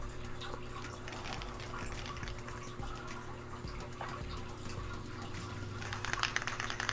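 Aerosol can of gloss black spray paint hissing in a steady spray. Near the end comes a brief run of rattling clicks, the can's mixing ball as it is shaken.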